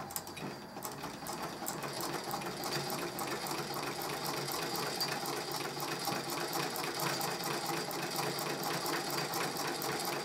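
Singer 127 treadle sewing machine, a vibrating-shuttle machine, stitching through a quilt with a walking foot. It makes a fast, even clatter of needle and shuttle strokes that picks up and grows louder over the first couple of seconds, then runs at a steady pace.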